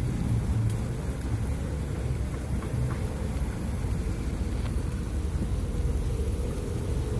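Steady low rumble of outdoor street ambience, with a few faint knocks.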